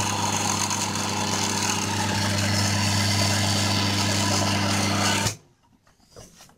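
Small 0.55 kW three-phase induction motor energised with one stator winding connected backwards, giving a loud, steady mains hum. The reversed winding unbalances the motor's magnetic field, so it hums hard and quickly overheats. The hum stops abruptly about five seconds in.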